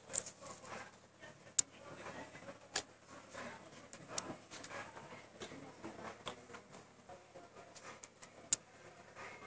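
Faint room noise broken by sharp, isolated clicks, about half a dozen at irregular intervals of one to two seconds.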